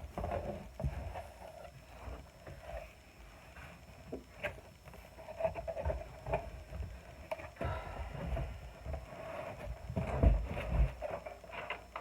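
A large cardboard box being knifed open and handled: irregular thumps and knocks with stretches of scraping and tearing, the heaviest thumps about ten seconds in.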